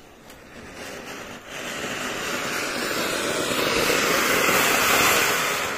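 A Diwali firework burning with a steady hiss, like a fountain or ground spinner throwing sparks. It grows louder for several seconds and starts to die down at the very end.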